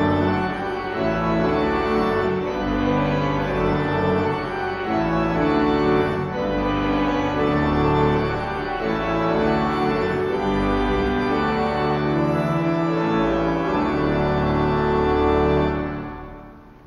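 Organ playing sustained chords, with the final chord dying away about a second before the end.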